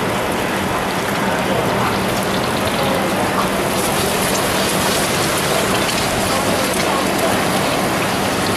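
Eggs frying in hot oil in a wok over a gas burner: a steady sizzle.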